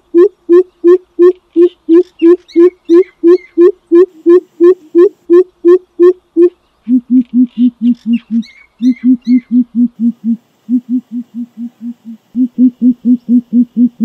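Greater coucal (crow pheasant) calling a long, even series of deep hoots, about three a second. A little over six seconds in it changes to a lower-pitched, quicker run of hoots broken by short pauses.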